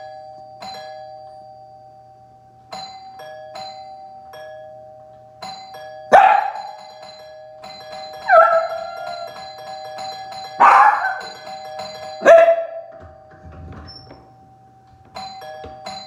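Electronic doorbell chime playing a tune of short ringing notes, repeated over and over. In the middle a dog barks loudly four times, the barks standing out well above the chime.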